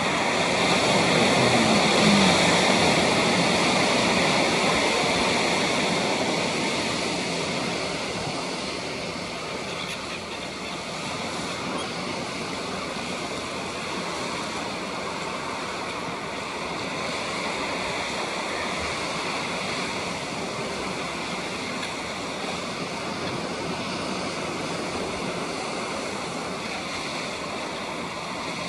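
Small waves washing steadily onto a pebbly shore, a continuous surf wash that is somewhat louder in the first few seconds and then settles.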